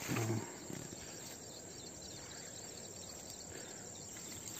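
Steady chirring of crickets and other insects, with a thin high trill. A short human vocal sound at the very start.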